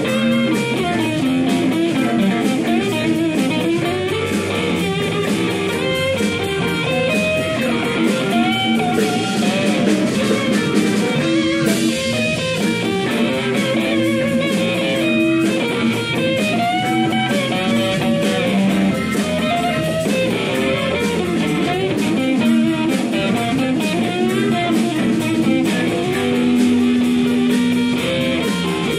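Live blues band playing an instrumental passage: electric guitar lead lines with bent notes over bass, drums and keyboard.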